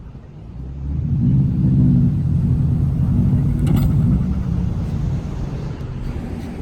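A car engine working hard under load, building about a second in and easing slightly after the middle. The engine is straining while a car is towed out of soft sand.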